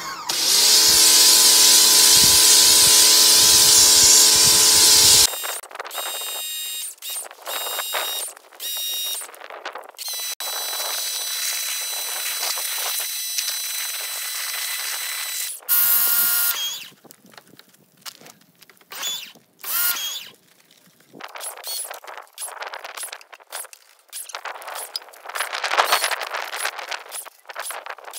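Electric pressure washer running: a steady motor whine over a loud hiss of spray for about five seconds, then a string of short, choppy bits of quieter whine and spray.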